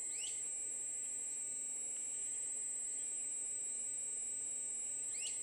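Steady high-pitched trill of night insects. Two short rising chirps cut in, one just after the start and one near the end. The RC excavator's hydraulic pump runs faintly underneath as the bucket moves.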